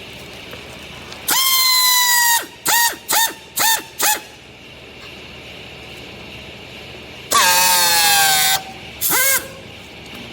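A horn honking in loud blasts: one long blast, four quick short toots, then a second long blast that sags in pitch and a last short toot.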